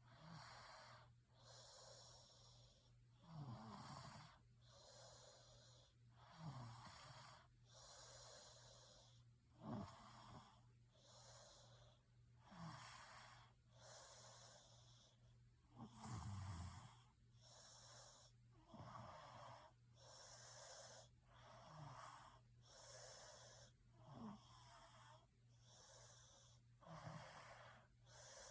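Faint human snoring in a steady rhythm, about one breath every three seconds: a short low snore on each breath in, followed by a breathy out-breath. A steady low hum runs underneath.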